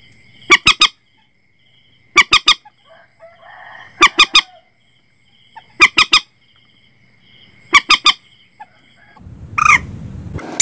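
Common moorhen calls: short harsh calls in quick clusters of two or three, repeated about every two seconds, from a recording played as a lure for netting the birds. A faint steady high pulsing trill runs behind, and a rustling noise rises near the end.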